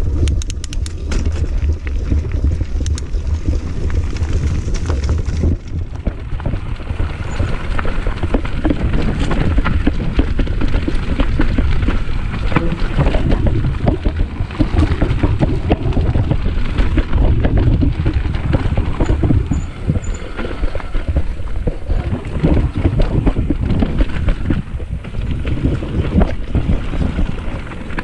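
Mountain bike riding fast down a rough dirt singletrack, heard from a camera on the rider: wind rumbling on the microphone over the tyres on dirt and roots, with a constant clatter and rattle from the bike.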